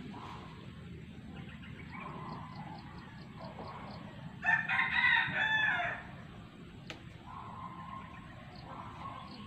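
A rooster crowing once, about four and a half seconds in, a loud call lasting about a second and a half over steady outdoor background noise.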